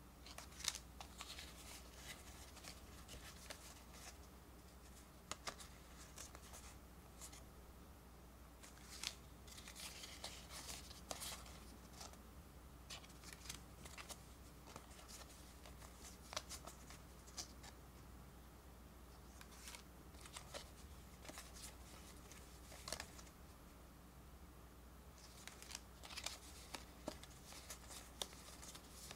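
Pokémon trading cards handled and sorted by hand: faint sliding and rubbing of cards against each other with scattered soft clicks and snaps, coming in clusters with quieter stretches between, over a low steady hum.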